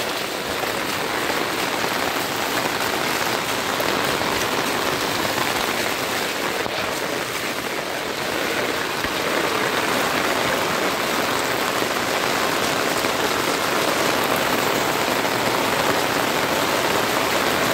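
Heavy rain falling steadily onto a flooded road, an even hiss, mixed with a bicycle wheel splashing through the floodwater.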